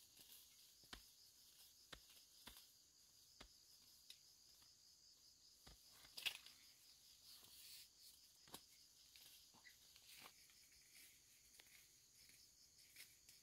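Faint insect chirring, a steady high pulsing drone, with scattered soft clicks and snaps of twigs and leaves in the undergrowth; the sharpest snap comes a little past six seconds in.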